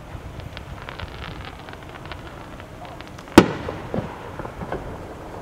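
Aerial firework shell bursting with one loud bang about three and a half seconds in, its echo trailing off, followed by a few fainter bangs.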